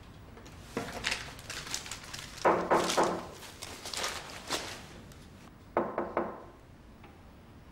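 Wooden thunks and knocks as a desk drawer is handled, with a louder cluster of knocks about halfway through. Just before the end, a sharp double click of a door latch as a panelled wooden door opens.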